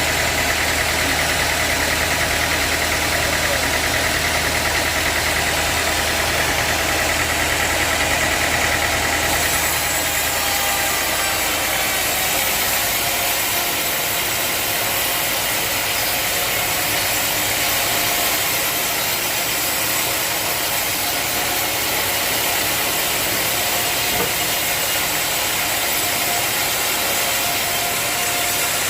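Sawmill engine running steadily. About ten seconds in the low hum drops away and a higher hiss takes over.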